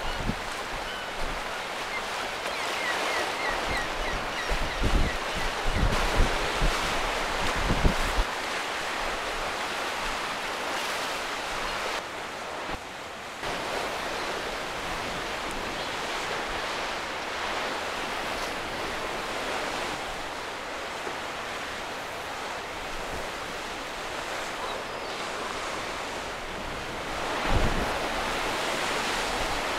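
Rough sea surging and breaking against a stone sea wall and rocky shore. Gusty wind buffets the microphone in deep thumps between about five and eight seconds in, and once more near the end.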